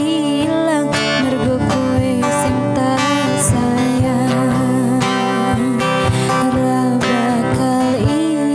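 Instrumental music with guitar over a steady beat, with a wavering melodic lead line.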